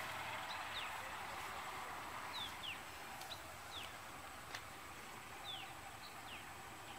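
Birds calling with repeated short, high notes that slide downward, scattered through a few seconds over a steady outdoor hiss. A single faint click about four and a half seconds in.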